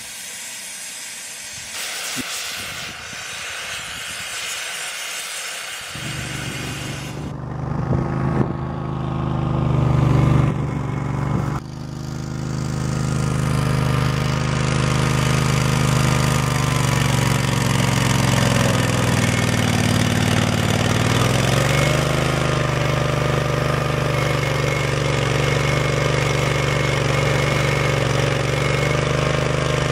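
For the first few seconds, electric arc welding on steel posts gives a steady crackling hiss. Then, from about six seconds in, a compact walk-behind trencher's engine runs steadily under load as the machine cuts a trench in the soil, its pitch sagging briefly past the middle.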